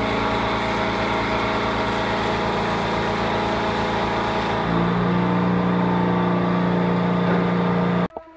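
Wire wheel on an electric grinder running steadily, its tone dropping and strengthening about halfway through as it bears on the metal. It is switched off or cut off abruptly near the end.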